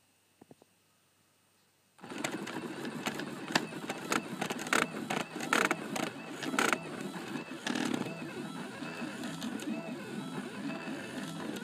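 Stepper motors of a small homemade CNC pen plotter built from DVD-ROM drives, starting up about two seconds in and running while it draws: a buzzing whine whose pitch sweeps up and down as the axes move, with frequent sharp clicks.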